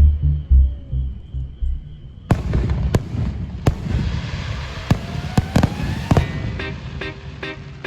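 Fireworks going off: a series of sharp bangs and crackles starting about two seconds in, with a rising whistle partway through, over background music. Guitar music comes to the fore near the end.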